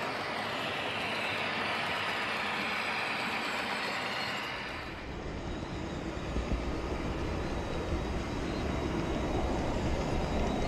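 Wheels of a model freight train rolling along the rails as its wagons pass, a steady whirring hiss. About five seconds in this gives way to a low rumble with a few clicks, the sound of the wheels heard from a camera riding on a model wagon.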